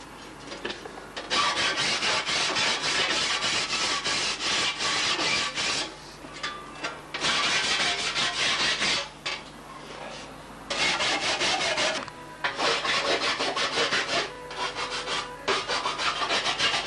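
Hand file rasping along the edge of an aluminium sheet in quick, regular back-and-forth strokes. The filing comes in runs of a few seconds, broken by short pauses.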